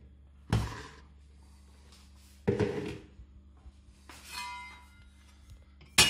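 Soft yeast dough handled on a wooden pastry board: two dull thuds about two seconds apart, then a brief ringing sound and a sharp click near the end, over a faint steady low hum.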